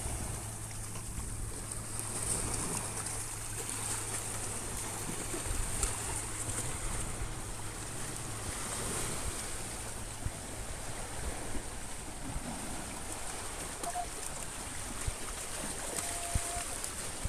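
Small sea waves lapping and washing over rocks at the water's edge, a steady wash of surf. A low steady hum runs through the first few seconds, and a few faint clicks come near the end.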